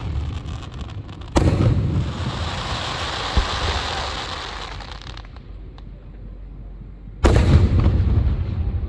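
Fireworks: a sharp boom about a second and a half in, followed by a crackling hiss that fades over about three seconds, then another sharp boom near the end.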